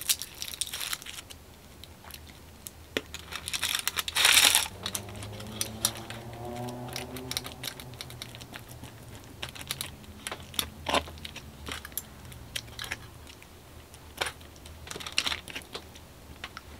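Metal fork clicking and scraping against a foil-lined baking pan while roasted garlic is mashed into tomato sauce, with a short burst of crinkling foil about four seconds in. A faint low hum runs through the middle.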